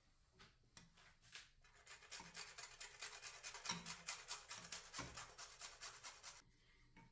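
Whole nutmeg rasped back and forth on a small metal hand grater, in quick even strokes of about five or six a second. The grating starts about two seconds in, after a few light taps, and stops shortly before the end.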